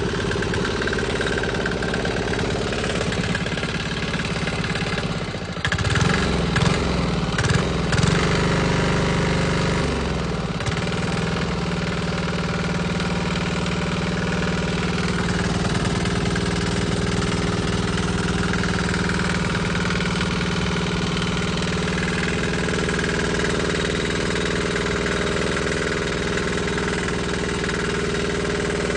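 Small 3-horsepower single-cylinder diesel engine running just after starting. About six seconds in, its speed rises and falls unevenly for a few seconds, then it settles into a steady run.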